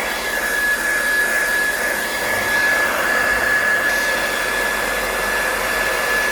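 Hair dryer running steadily, a rush of air with a high, constant motor whine, blowing heat onto a phone's back cover to soften its adhesive.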